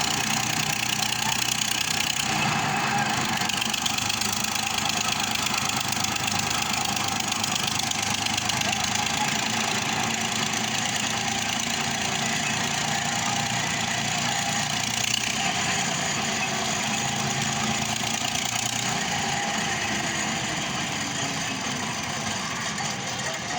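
Construction machinery engine running steadily, with a dense, even mechanical clatter that does not let up.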